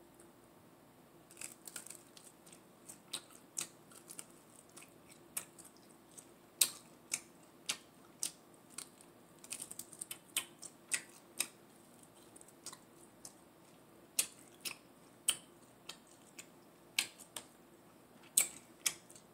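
Close-up eating sounds of a person biting and chewing sauce-coated chicken wings: irregular sharp clicks of mouth and lips, a few louder ones, with short pauses between.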